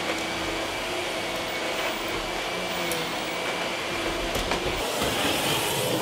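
Canister vacuum cleaner running steadily with a constant motor whine.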